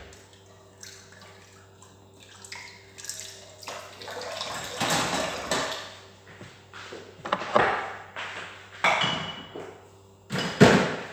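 Kitchen sounds: irregular spells of running water and the clatter of things being handled, over a steady low hum.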